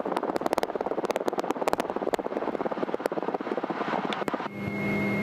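Small airplane's piston engine running at low power, heard from the cockpit as a fast, even train of firing knocks. About four and a half seconds in, a steady buzzing hum with a thin high tone takes over.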